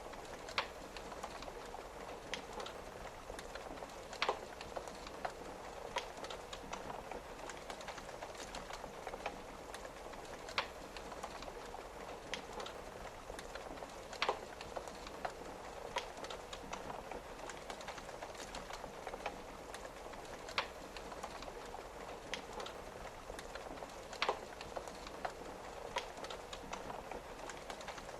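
Wood fire crackling, with irregular sharp pops every few seconds, over a steady patter of rain on a window.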